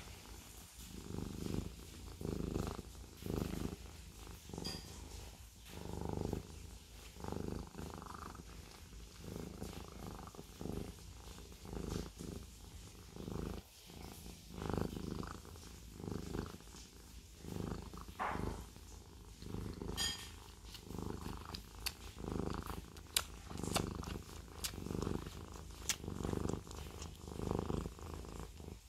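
Siamese cat purring steadily up close, the purr swelling and fading with each breath about once a second. A few faint clicks come in the second half.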